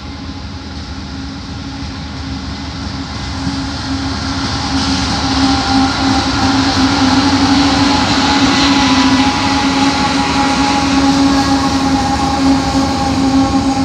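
Diesel freight locomotives approaching and passing close by: a steady engine hum with several held tones over a rumble. It grows louder over the first six seconds or so, then stays loud as the units go by.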